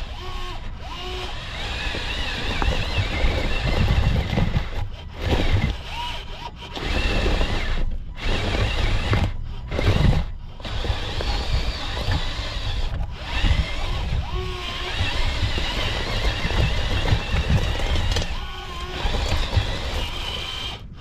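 Small electric motors of 1/20-scale RC construction models whining and wavering in pitch as they work, over a heavy low rumble that drops out briefly several times.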